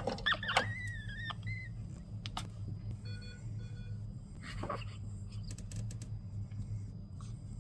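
Newborn hearing screener giving a short double electronic beep about three seconds in, over a steady low electrical hum. Near the start there is a brief high squeak that glides up and down.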